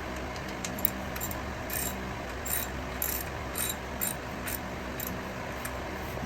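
Ratchet wrench clicking in short, uneven strokes, about two clicks a second, as it is worked on a fastener under a car.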